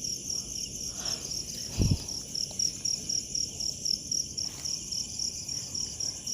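Crickets chirping steadily, a high pulsing trill repeating about three times a second, with a single dull low thump about two seconds in.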